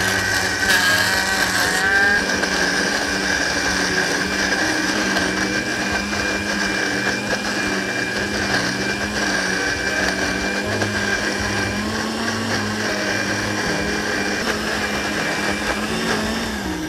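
Panasonic countertop blender running steadily as it chops sliced lemongrass and other curry-paste ingredients in water. Its pitch wavers slightly as the load shifts, and it switches off at the very end.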